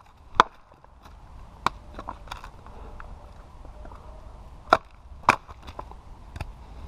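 Batoning: a wooden baton knocks down on the spine of a large chopper knife set in a log, driving the blade through to split the wood. About six sharp knocks at uneven intervals, the loudest two close together near the end.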